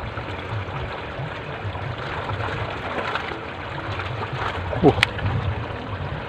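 Water flowing and trickling steadily at a fish pond's sluice gate. Near the end comes a short falling squeak, then a sharp click.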